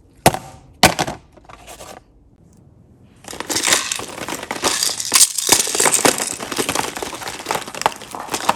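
Two sharp clicks, then from about three seconds in a dense, continuous crackling full of small clicks as slime is handled.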